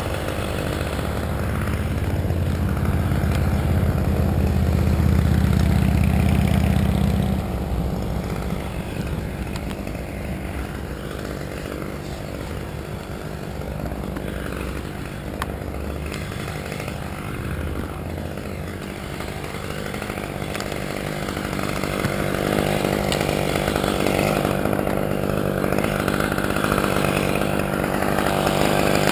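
Husqvarna two-stroke chainsaw idling steadily with an even, unchanging engine note. It runs louder for the first several seconds, then quieter.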